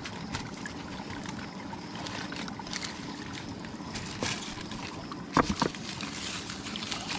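Water trickling and sloshing, with a few small clicks and one sharp knock about five and a half seconds in.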